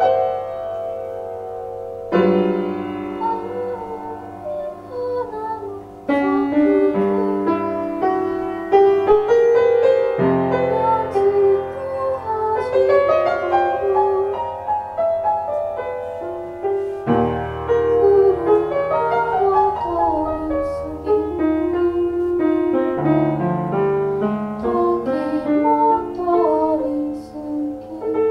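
Piano playing a slow instrumental passage: a wandering melody over low bass notes struck every few seconds.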